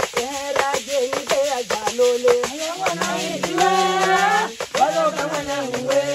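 Group song accompanied by kayamba, flat woven raft rattles, shaken in a steady beat. A lead voice sings at first, and several voices join in holding notes together about halfway through.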